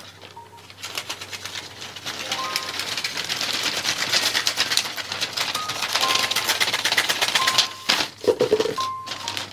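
Gift-wrapping paper rustling and crackling as it is unrolled, smoothed and cut with scissors: a dense run of crisp snips and crinkles. Light background music with short high notes plays underneath.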